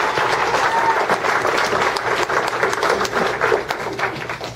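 Audience applauding, many hands clapping together, tailing off near the end.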